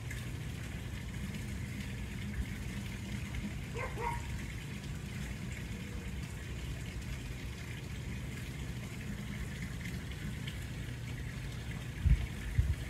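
A garden fountain splashes steadily under a low, continuous hum of honeybees working the flowers close by. A brief dog whine comes about four seconds in, and a few low thumps come near the end.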